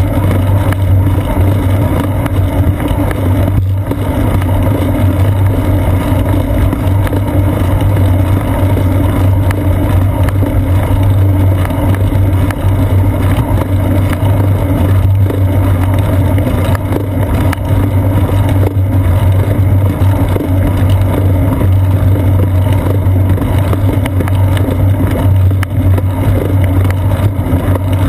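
Steady loud drone and rumble of a bicycle rolling on asphalt, heard through a seat-post-mounted GoPro Hero 2 in its housing: road vibration and wind carried into the camera.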